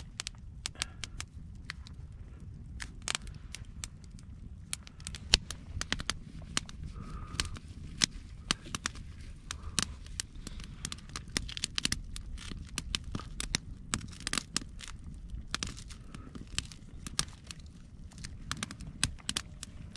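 Small campfire of thin dry sticks crackling, with irregular sharp pops over a low steady rumble.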